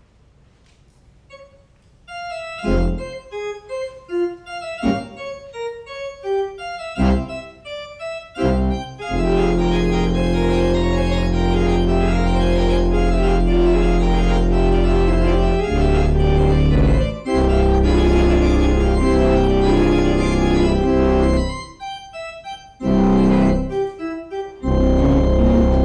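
Church organ playing the postlude after the benediction. After a couple of quiet seconds come single notes and short phrases, then about nine seconds in it opens into full, sustained chords with deep bass, with a few short breaks near the end.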